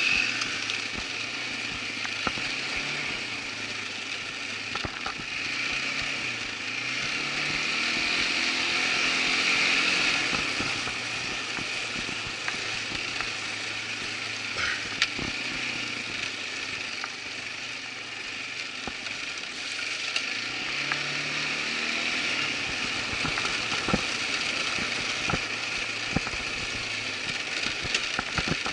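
Irbis ATV 200 quad bike's engine running under way, its pitch rising and falling as the throttle changes. Sharp knocks and rattles come from the machine going over bumps on the trail.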